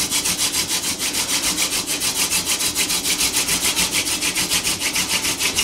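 Horseweed hand drill spindle spun between the palms and grinding into a Western Red Cedar hearth board, a rapid, even rhythm of wooden scraping at about six or seven strokes a second. The board is warming up and the notch is filling with hot dust as the friction builds toward an ember.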